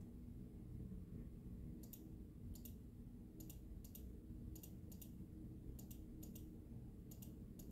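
Faint computer mouse clicks, mostly in quick pairs, repeating every half second to a second from about two seconds in, over a low steady room hum.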